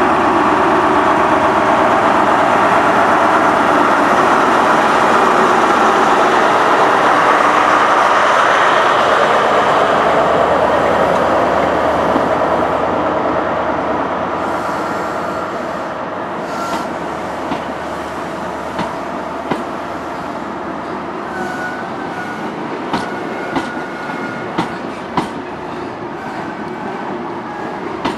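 A Great Western Railway HST passes: the Class 43 power car's diesel engine runs loud for the first ten seconds or so, then fades. The Mark 3 coaches follow, rolling by with evenly spaced clicks of wheels over rail joints and a few brief, faint squeals.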